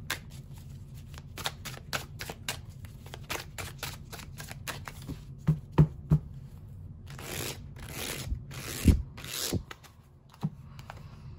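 Tarot cards handled and shuffled: a rapid run of card clicks, then a few sharp taps about halfway through and several soft swishes as cards are slid from the deck.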